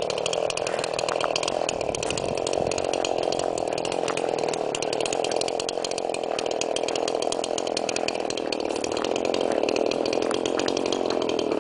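Chainsaw running steadily at an even pitch without a break, with no crash or impact from a falling tree.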